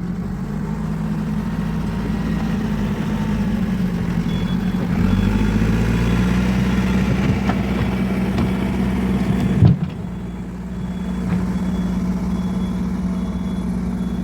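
Caterpillar 416E backhoe loader's diesel engine running steadily, working harder from about five seconds in. There is a single sharp clank near ten seconds, and a faint intermittent high beeping in the second half.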